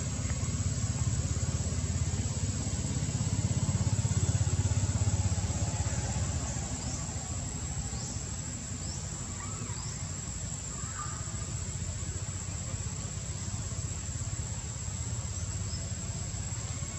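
Outdoor ambience with a steady low rumble that swells about four seconds in, a continuous high insect whine, and a few short, high, falling bird chirps between about six and ten seconds in and again near the end.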